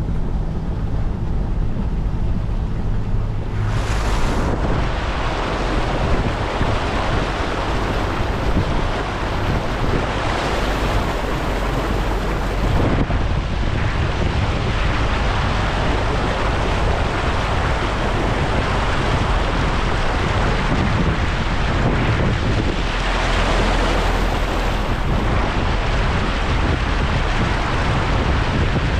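A vehicle wading through deep floodwater over a road, its bow wave rushing and splashing along the front and sides, with the engine's low hum underneath. About four seconds in, the rushing water gets much louder and stays loud, swelling again a few times.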